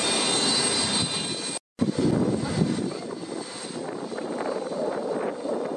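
Turbine whine from the parked Antonov An-225: a steady rushing noise with thin high-pitched tones. It cuts out briefly under two seconds in and comes back as a lower, rougher rumble.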